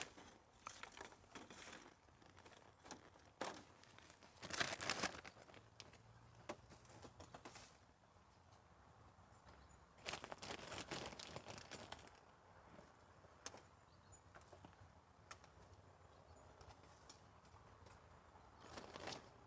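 Soft rustling and crinkling of something being handled, with scattered small clicks and taps; two louder spells of rustling, a few seconds in and again about halfway.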